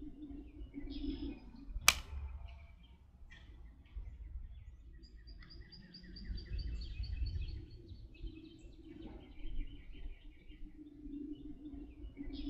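Birds chirping in short repeated phrases over a low wind rumble, with one sharp crack about two seconds in.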